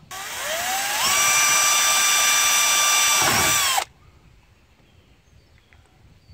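Power drill boring a mounting hole through the radiator fan shroud: the motor winds up over about a second, runs steady, dips briefly and stops suddenly about four seconds in. The bit runs on through the shroud into the radiator core and punctures the brand-new radiator.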